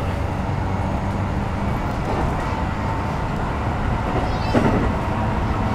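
Keikyu New 1000 series electric train running, heard inside the passenger car on the side of its Toyo hybrid SiC VVVF inverter: a steady rumble of wheels on the rails with a steady electric hum.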